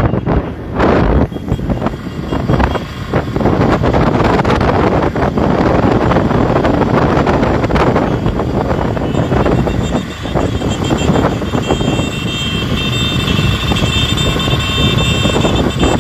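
Loud wind and engine noise from riding on a moving vehicle in a road convoy, with a mass of motorcycle engines running close behind. From about 11 seconds in, a steady high whine sits over the noise.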